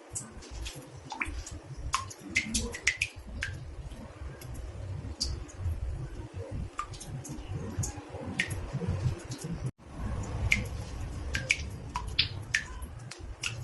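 Water drops falling into a bathtub: irregular plinks, several a second, some with a short ringing pitch, over a low rumble. The sound cuts out for an instant about ten seconds in.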